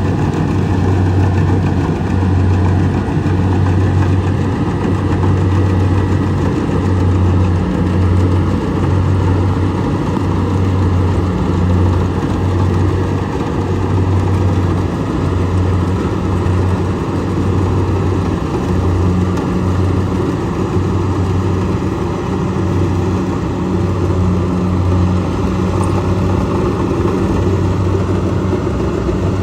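Kubota DC70 rice combine harvester's diesel engine running steadily, a loud, even low drone with mechanical noise over it.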